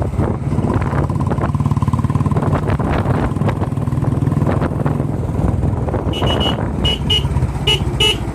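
A motor vehicle engine running steadily, with a series of short horn beeps, several in quick pairs, in the last couple of seconds.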